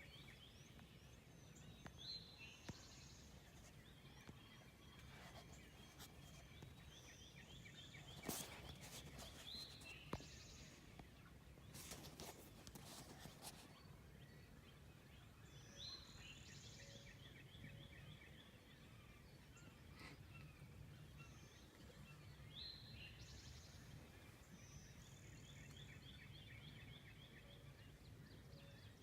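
Faint springtime woodland birdsong, with high chirping phrases repeating every few seconds, and a wild turkey gobbling in the distance. Two brief louder bursts come about a third of the way in and again a few seconds later.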